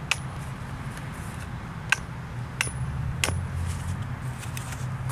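Hammer blows driving a stake into the ground for a fence detour wing: four sharp, unevenly spaced strikes, some with a short high ring, over a steady low hum.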